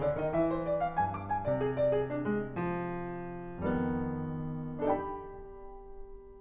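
Piano music: a quick run of notes, then a few held chords that ring and fade away.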